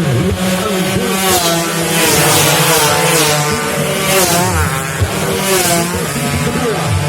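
Several two-stroke underbone racing motorcycles running hard at once, their engine notes rising and falling as the throttle opens and closes.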